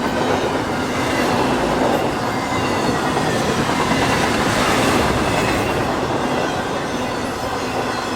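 Freight cars of an intermodal train rolling past close by: a steady, loud rumble of wheels on rail with clickety-clack and a faint high wheel squeal.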